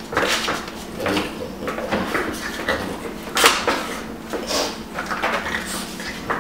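Scuffling and handling noises of a small puppy being picked up and played with on a rug, in irregular short rustles and knocks. The loudest is a sharp one about three and a half seconds in.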